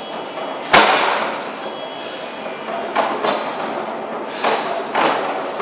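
Thuds and knocks of workout equipment hitting the floor or wall in a gym. The loudest is one sharp impact about a second in, followed by several lighter knocks.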